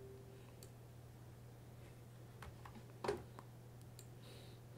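A few faint, isolated computer mouse clicks over a low steady hum.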